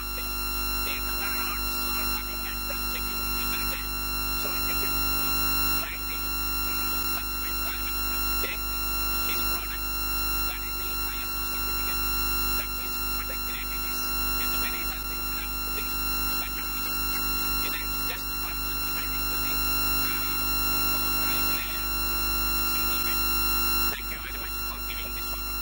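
A steady electronic drone: many held tones stacked over a low mains-like hum, without speech, swelling slightly in level every few seconds.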